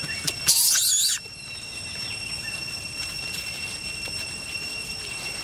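Infant macaque giving a short, high-pitched squealing cry with wavering pitch about half a second in, lasting under a second. A steady high thin whine continues behind it.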